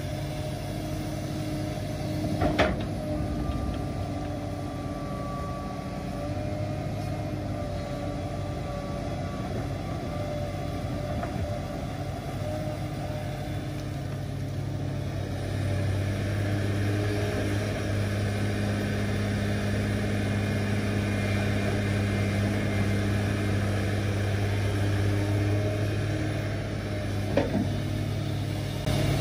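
Komatsu hydraulic excavator's diesel engine running steadily as it digs, working harder and louder from about halfway through. A sharp knock comes about two and a half seconds in, and another near the end.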